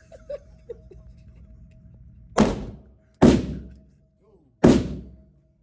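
Three pistol shots fired by a beginner, the second close after the first and the third about a second and a half later, each sharp and loud with a short ringing tail.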